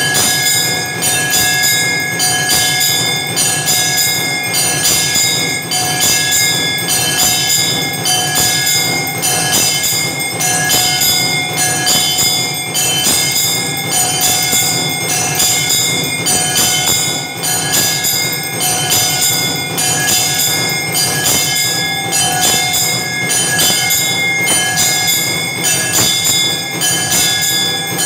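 Temple aarti bells ringing and clanging in a steady rhythm, about two strokes a second, with a bell tone held over it throughout.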